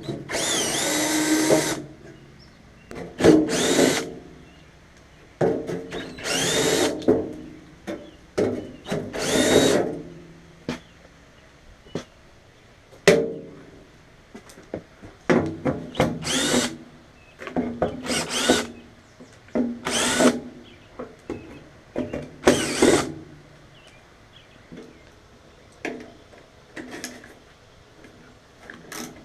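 Power drill run in about ten short bursts, its whine rising each time it spins up, with small knocks between the bursts.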